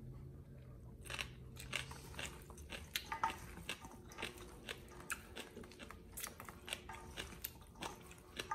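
A person chewing a mouthful of crunchy lotus-stem salad, with irregular crisp crunches starting about a second in.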